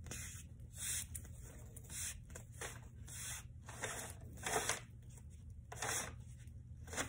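A series of short rustling, brushing sounds, about one a second, some louder than others, over a faint steady low hum.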